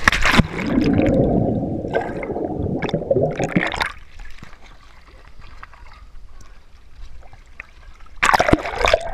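Swimming pool water splashing and gurgling as a swimmer ducks under, heard with the camera at the waterline. A sharp splash opens, followed by a muffled underwater rumble for about four seconds, a quieter stretch, and more splashing near the end.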